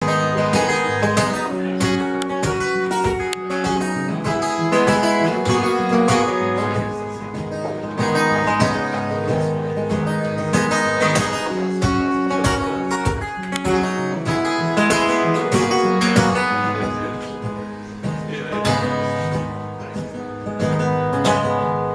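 Steel-string acoustic guitar played live, strummed and picked in a steady rhythm as the song's instrumental intro.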